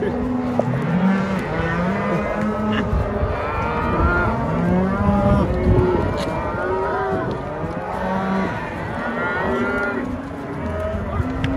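A herd of cows and calves mooing and bawling continuously, many overlapping calls at once, as the cattle are driven along.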